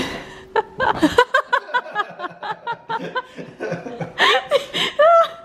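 People laughing: a long run of short, rapid bursts of laughter, about three or four a second, after a sudden loud start.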